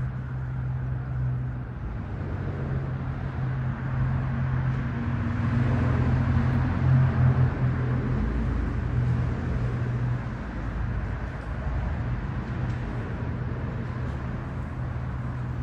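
A steady low engine hum over a wash of background noise, a little louder about halfway through.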